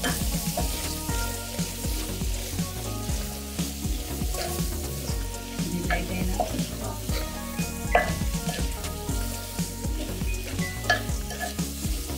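Goat tripe (botti) sizzling in a pot while it is stirred with a spatula, with scrapes and knocks of the spatula against the pot, the sharpest about eight and eleven seconds in.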